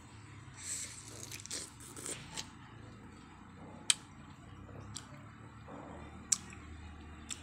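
Biting into and chewing a piece of fresh pineapple: wet, crunchy crackles through the first couple of seconds. Then a few sharp, isolated clicks, the two loudest about four and six seconds in.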